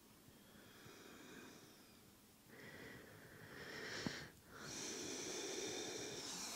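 Slow, deep human breathing, faint and close to the microphone: a soft breath, then a long in-breath building from about halfway, a short pause, and a louder out-breath near the end. This is the nose-in, mouth-out relaxation breathing of a yin yoga pose.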